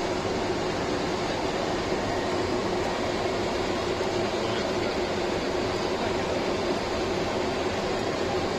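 Steady cockpit noise inside a Beriev Be-200 twin-turbofan amphibious firefighting plane: an even engine drone and rush with a constant hum.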